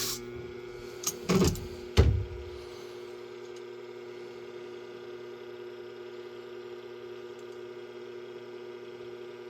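A few knocks and clatters about a second or two in, as the clamped shear is handled on the sharpening machine, then the machine's motor humming steadily with no grinding contact.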